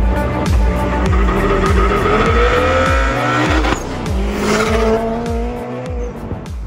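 Turbocharged VAZ 2107 with a Priora engine running about 1.5 bar of boost, accelerating hard past: the engine note rises steadily, breaks off abruptly a little past halfway, then pulls again at a lower pitch and fades away. Music with a steady beat plays underneath.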